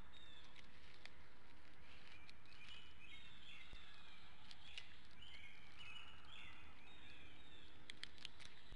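Outdoor bird calls: many short, high chirping notes overlapping, busiest from about two and a half seconds in until near the end, with a few sharp clicks and a steady low hum underneath.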